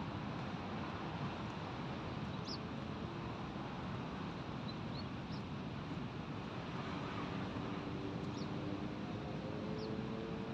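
Steady wash of breaking surf and wind, with a few short high bird chirps. From about the middle, a faint low drone slowly rises in pitch.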